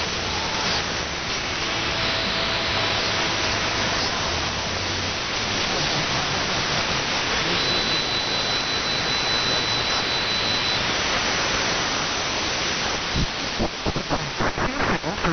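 Radio static from a web SDR receiver tuned between stations: a steady hiss with a faint high whistle tone partway through. Fragments of a station start to break through near the end.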